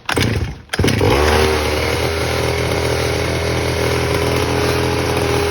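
Small single-cylinder engine cranking briefly, then catching about a second in and running steadily at a fast idle. It is running on a homemade flywheel key cut from a square bolt.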